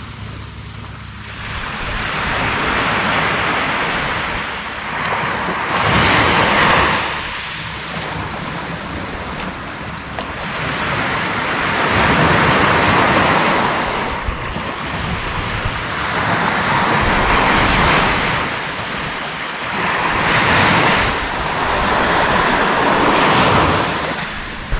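Surf breaking on a sandy beach, the wash of the waves swelling and fading every few seconds.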